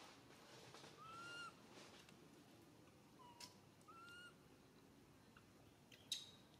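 Young macaque giving three short, high, whistle-like coo calls, the first and last rising then falling. A single sharp click sounds near the end.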